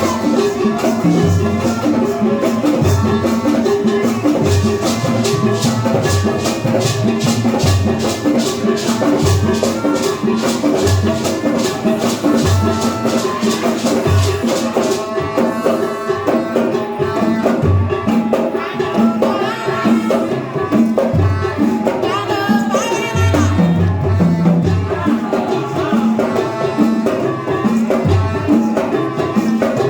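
Music with percussion keeping a steady beat, a low note falling about once a second under quick, even rattling strokes.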